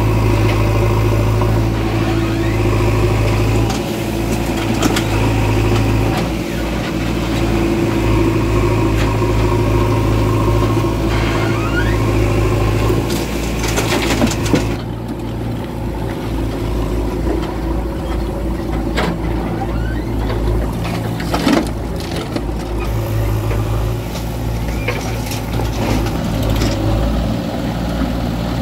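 JCB 3DX backhoe loader's diesel engine running under working load, its pitch rising and falling as the bucket is worked. About halfway through, and again a little later, earth and rocks knock as they are tipped into a tractor trolley.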